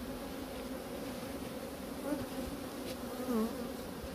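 Honeybees buzzing around an open hive: a steady hum, with single bees passing close and their pitch bending about two seconds in and again a little after three seconds.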